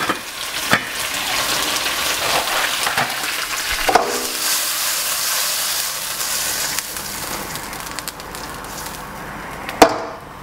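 Butter and minced garlic sizzling in a frying pan while being stirred, with a few clicks of the utensil against the pan. A sharp knock just before the end is the loudest sound.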